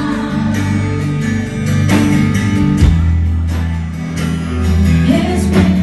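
Worship band music between sung lines: a guitar strumming chords over sustained bass and keyboard tones.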